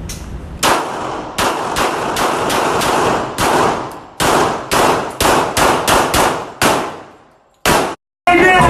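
Gunshots fired in quick, uneven succession, about a dozen shots roughly half a second apart, each ringing out briefly, with a short pause before a last shot near the end.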